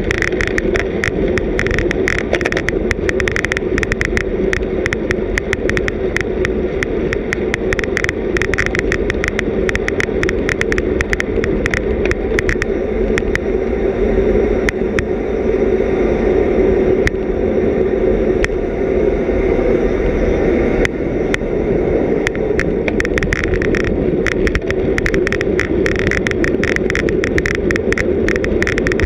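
Road bicycle racing at speed, heard from a camera on the bike: steady wind rush and tyre-on-road noise with dense rapid clicks and rattles, which thin out for several seconds in the middle while the rushing grows a little louder.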